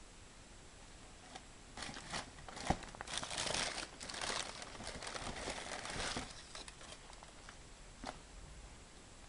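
Packaging being handled, crinkling and rustling in irregular bursts for a few seconds, with a sharp click partway through and a single tick near the end.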